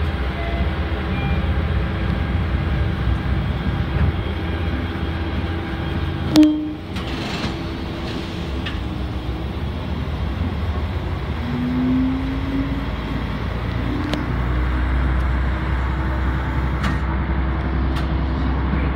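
Mooka Railway diesel railcar running slowly along the track, its engine rumbling with wheel and rail noise, heard from on board. A single sharp loud knock about six seconds in, and the engine's low rumble grows heavier from about fourteen seconds in.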